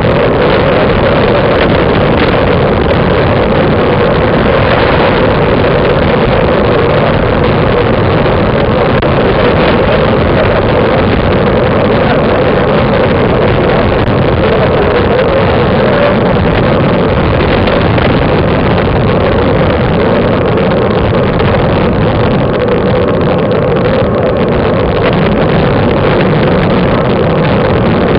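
Wind rushing over a bike-mounted camera's microphone, mixed with road noise from riding: a loud, steady rush that does not let up.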